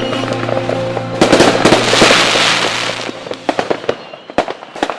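Fireworks: a dense, loud run of bangs and crackles starting about a second in, thinning to scattered pops toward the end. Before that, a held chord of background music dies away.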